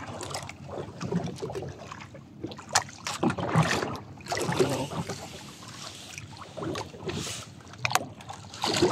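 Sea water lapping and sloshing against the side of a small outrigger boat, with wind on the microphone and scattered brief swishes and knocks as a fishing handline is pulled in hand over hand over the gunwale.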